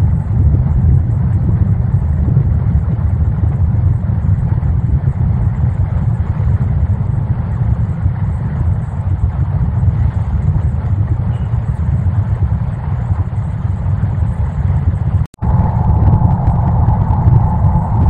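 Steady, loud storm noise with most of its weight in a low rumble, as of wind and heavy rain on the microphone. The sound cuts out for an instant about fifteen seconds in, and a faint steady whine runs under the noise after that.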